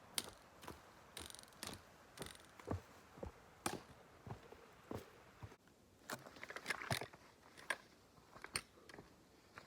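A hiker's footsteps on a rocky trail: sharp, irregular clicks and taps about every half second, with a quick cluster of them about six to seven and a half seconds in.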